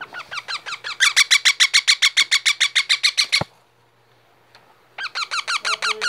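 Baby ringneck parakeet squawking in a fast, rapid-fire series of loud calls, about eight a second, for about three and a half seconds. A second short run starts about five seconds in.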